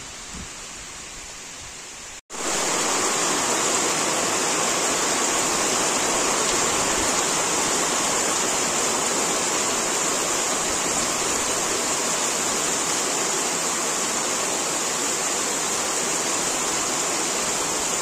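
Wind in the trees as a quieter hiss at first. About two seconds in, heavy rain takes over, pouring down as a loud, steady hiss.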